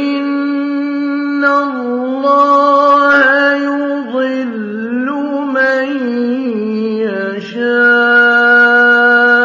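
A man's voice chanting Quran recitation in the melodic tajwid style, drawing out long held notes with ornamented turns in pitch.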